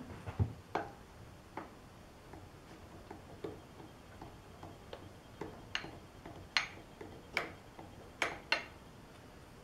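Light, scattered clicks and taps of steel parts as a chuck on a dividing head, with a clamped steel lathe dog, is turned and handled, about a dozen irregular clicks, sharper ones in the second half.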